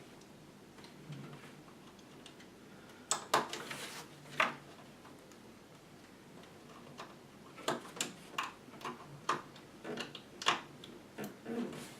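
Irregular clicks and taps from computer parts and cable connectors being handled and pushed into place inside a PC case: a few sharp knocks about three seconds in, then a longer run of clicks in the second half.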